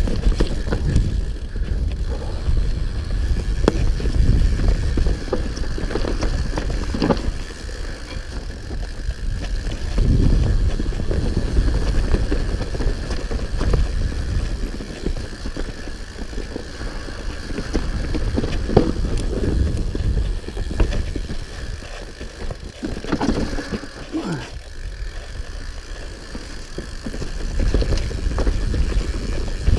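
Hope HB160 mountain bike ridden fast down a dirt forest trail: steady tyre rumble with the frame and components rattling and knocking over roots and bumps. A short falling squeak comes about three-quarters of the way through.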